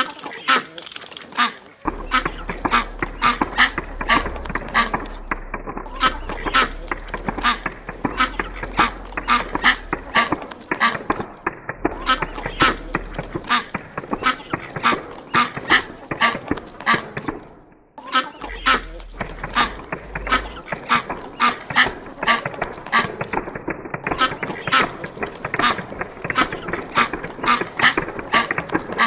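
Clockwork wind-up plastic duck toys hopping: a rapid, continuous clicking and clattering of the spring-driven mechanisms and plastic feet tapping on the tabletop.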